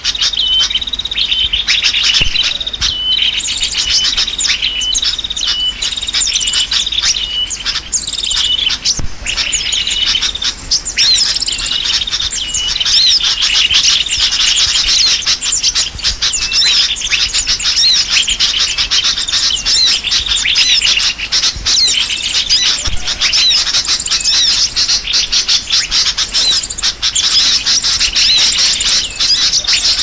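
A dense, noisy chorus of many small songbirds chirping and twittering at once, with sooty-headed bulbul calls in the mix: a lure recording for trapping small birds. A short note repeats over and over for the first few seconds before the chatter thickens.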